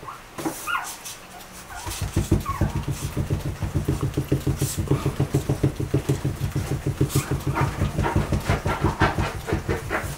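Newborn Yorkshire terrier puppies give a few brief squeaks in the first second. From about two seconds in until near the end, a small dog pants rapidly and rhythmically, about six breaths a second.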